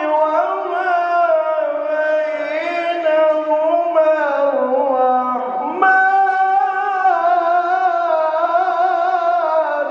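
A man reciting the Quran (tilawat) in a melodic chant into a microphone, holding long notes with ornamented turns of pitch. One phrase ends with a falling dip, and a new, louder phrase begins about six seconds in.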